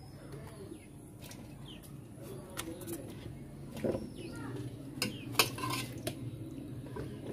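Scattered taps and knocks of raw climbing perch being laid on a large metal tray, the sharpest about five seconds in, with birds chirping faintly.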